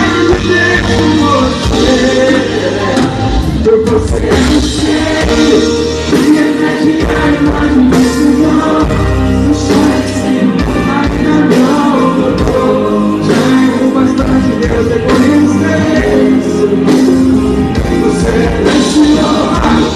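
Live gospel song played loud through a stage PA: a male lead singer sings over a band with electric guitar and a steady beat.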